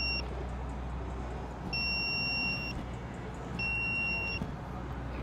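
Grounding tester beeping: a steady high beep about a second long, repeating about every two seconds. The beeping signals that the body is grounded through the conductive sole of the grounding boot.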